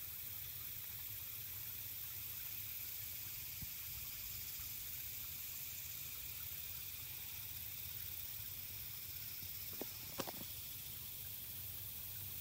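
Steady background hiss with a low rumble underneath, broken by two or three short clicks close together about ten seconds in.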